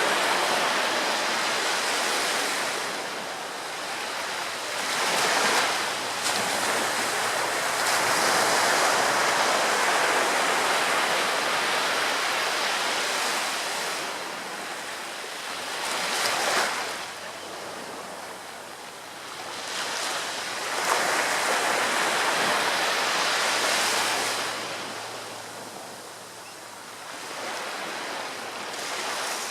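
Ocean surf: waves breaking and rushing in, the noise swelling and fading in surges every few seconds.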